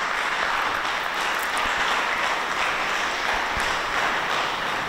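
Congregation applauding: many people clapping steadily together.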